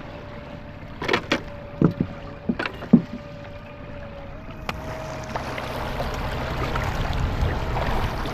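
Small boat's motor running with a steady hum while a few sharp knocks and clatters ring out as a caught trout is handled in a landing net at the boat's side. From about halfway on, a rushing wash of water and wind grows louder.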